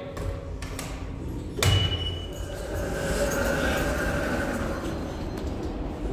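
Boltshauser passenger elevator cab and sliding doors: a few light clicks, then a clunk with a short high beep about a second and a half in, followed by a steady hum.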